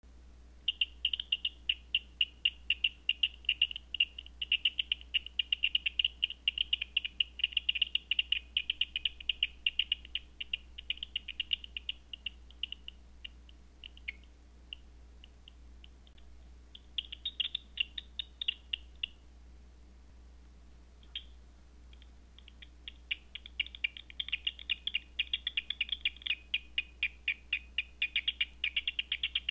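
Bat echolocation calls made audible by a Batseeker 4 bat detector: rapid trains of dry clicks. The clicking is dense for the first dozen seconds, fades out, comes back briefly, then picks up again densely near the end as bats pass the detector.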